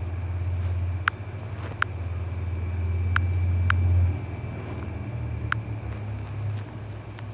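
Low steady rumble of a motor vehicle that drops away about four seconds in, with short high chirps every second or so over it.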